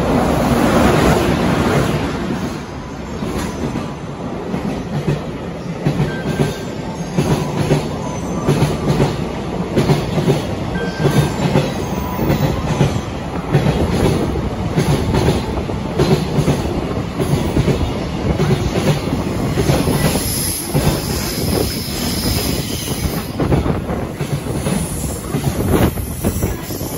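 JR Freight EH500 electric locomotive passing close by, loudest in the first two seconds, followed by a long string of container wagons rolling past with a steady, rhythmic clickety-clack of wheels over rail joints.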